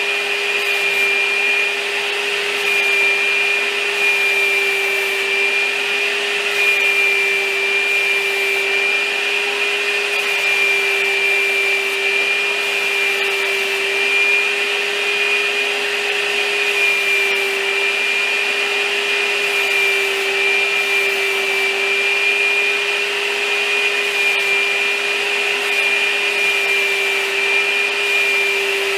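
A motor-driven machine running steadily, with an even rush of air and a constant two-pitched whine that does not change speed.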